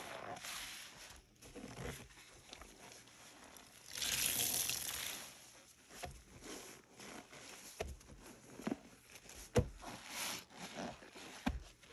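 A soapy sponge being squeezed and worked by rubber-gloved hands: crackling, squishing squeezes, with a longer hissing squeeze about four seconds in and a run of short squelches and glove-rubbing crackles in the second half.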